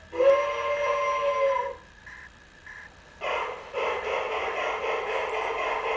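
LGB model locomotive: a steady whistle-like tone for just under two seconds, then a short pause. About three seconds in, a steady running sound starts as the train sets off round the track.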